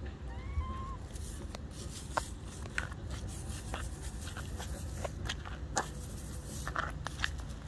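Kittens playing with and biting at a catnip toy: scattered small clicks, taps and scrapes over a low steady rumble, with a faint short squeak about half a second in.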